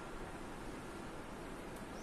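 Steady hiss of background noise, with a faint short high chirp near the end.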